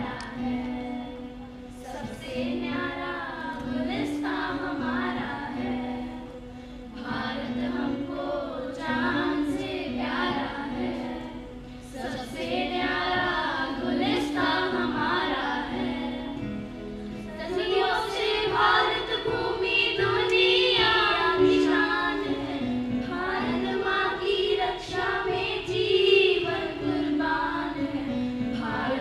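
A small group of schoolchildren singing a Hindi song together into microphones. About 18 seconds in, the singing moves higher and gets louder.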